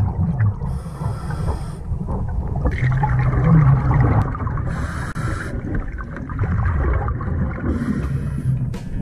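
Scuba regulator breathing heard underwater: three short hissing inhalations, each followed by a low, bubbling, gurgling exhalation.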